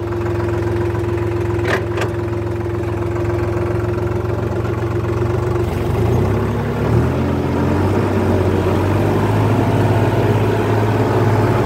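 Sonalika 60 RX tractor's diesel engine running steadily, heard from the driver's seat, with two sharp clicks about two seconds in. About six seconds in the engine note shifts and grows a little louder as it takes up work.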